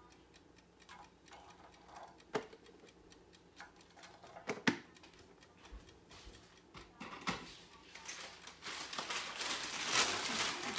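Scattered light clicks and knocks of kitchen things being handled and set down, with two sharper knocks about two and five seconds in. From about eight seconds in, a plastic bag rustling and crinkling, growing louder.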